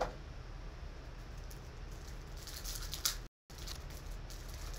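Foil wrapper of a trading-card pack crinkling as it is handled and opened by hand, loudest in a burst of crackles about two and a half to three seconds in, over a steady low hum.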